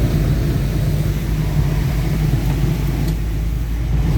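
Car driving through deep floodwater in a heavy downpour, heard from inside the cabin: a steady low rumble with a wash of water noise over it.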